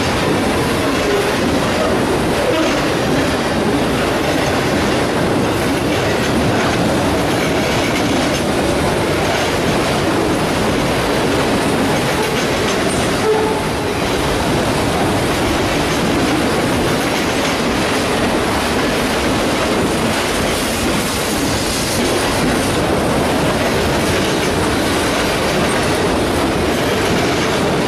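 Freight train of autorack cars rolling past, a loud, steady rumble with dense clatter of wheels on the rails.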